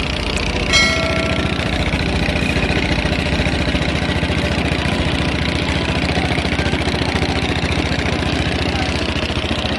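Boat engine running steadily with a fast, even pulse. A short high-pitched tone sounds about a second in.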